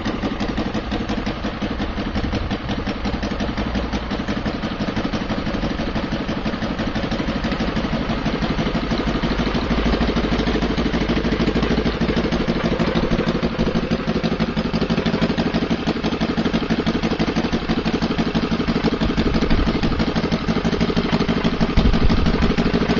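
VT 85 2R 85 cc inline twin-cylinder four-stroke petrol model-aircraft engine running steadily while turning a wooden two-blade propeller. It gets a little louder about ten seconds in.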